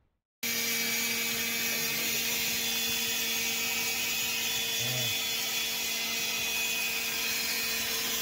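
Steady machine noise: a constant hum with a fainter higher whine over an even hiss, starting suddenly about half a second in and holding level throughout.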